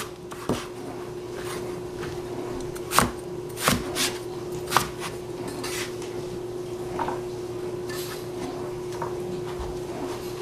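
Knife cutting eggplant on a wooden chopping board: several sharp strikes on the board, mostly in the first five seconds and fainter after, over a steady hum.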